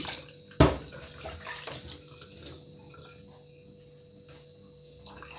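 Onions and garlic being rinsed by hand in water: splashing and sloshing, with one sharp loud splash about half a second in, then fewer and quieter movements.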